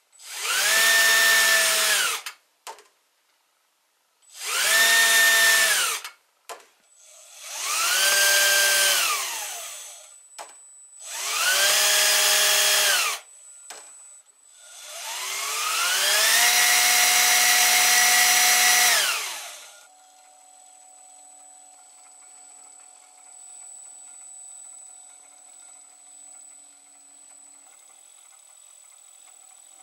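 Brushed electric motor of a scale-model excavator, with a hand-rewound armature and its own cooling fan, run up five times: each run is a whine that climbs to a steady pitch, holds for one to four seconds, then winds down, the last run the longest. After it, about two-thirds in, only a faint steady high tone remains.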